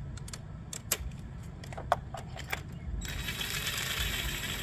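A few light metallic clicks and taps of tools, then about three seconds in a power drill on its low setting starts running steadily, spinning a new spark plug into its thread.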